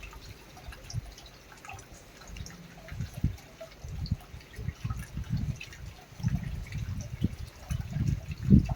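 Heavy rain falling, with large drips landing close by in irregular dull taps that come thicker in the second half, the loudest near the end.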